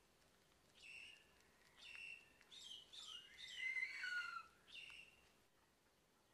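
Small birds chirping faintly: single short chirps about a second apart, then a busier stretch of overlapping calls with falling whistles around the middle, and one last chirp near the end.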